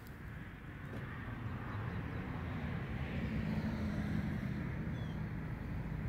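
A low, steady engine hum that grows louder over the first three seconds or so and then holds.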